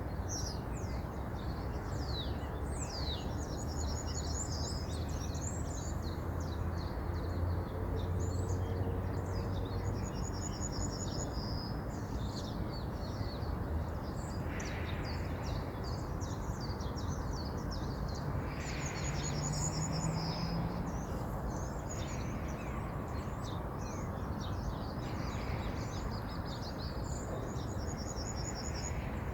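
Steady rush of a flowing river, with small birds chirping and singing over it; one bird repeats a short, rapid trill about every eight seconds.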